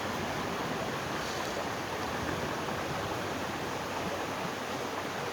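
River water flowing: a steady, even rushing noise with no distinct events.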